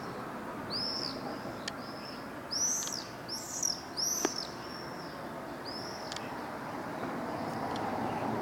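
Birds calling outdoors: a run of short, high, arched chirps, bunched in the first half with one more a little later, over a steady low background noise.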